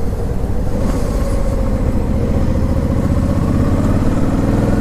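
Motorcycle engine running under way, its note rising gently from about halfway through as it picks up speed.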